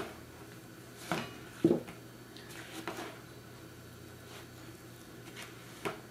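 Spatula stirring crumbly dough in a plastic mixing bowl: a few scattered knocks and scrapes against the bowl, the loudest about a second and a half in.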